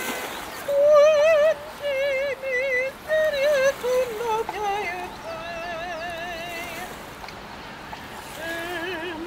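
A high voice singing wordless long notes with wide vibrato, in short rising and falling phrases that are loudest in the first half, then a softer wavering held note and a lower note near the end. A steady hiss lies underneath.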